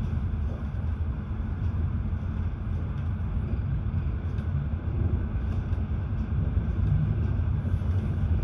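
Steady low rumble of a moving airport express train, heard inside the passenger car: wheels and running gear on the track.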